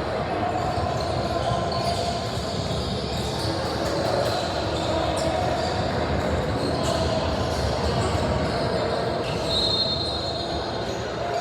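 Basketball game sound in a gym: a steady din of court and crowd noise, with high squeaks from sneakers on the court floor, the clearest about ten seconds in.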